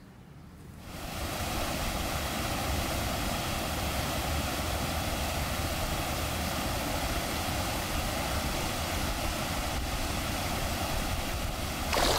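Steady rushing of river water pouring over a small stepped weir, fading in about a second in and holding even.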